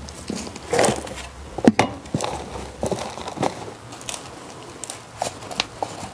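Gloved hands rustling and scraping in loose potting soil and handling plastic plant pots, with scattered small knocks and crackles, while a pepper plant is being lifted out of its pot for repotting.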